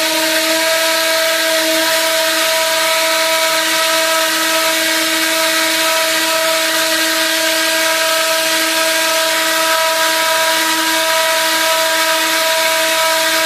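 Airbus A320 ram air turbine spinning at a steady speed in a ground test, a loud, steady whine with several tones at once.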